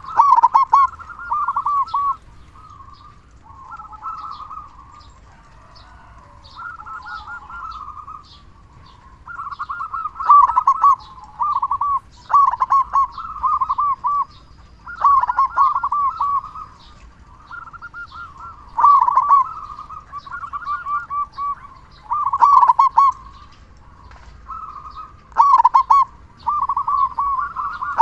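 Zebra dove (perkutut) cooing: rapid, rolling coo phrases near one pitch, a louder phrase every few seconds with softer cooing in between.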